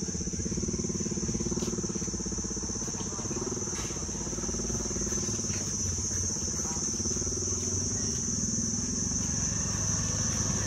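Insects droning steadily at one high pitch, over a continuous low rumbling hum.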